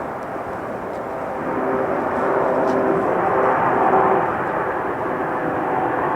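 Airbus A380 four-engine jet airliner on landing approach, its engines making a steady jet rush with a faint whine in it. The sound swells about a second and a half in and is loudest around four seconds in as the aircraft passes.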